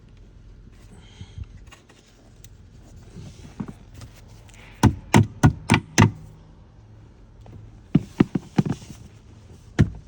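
A hand knocking a plastic push pin into the truck seat with short, sharp knocks: about five in quick succession a bit under halfway through, then a few more later and another group near the end.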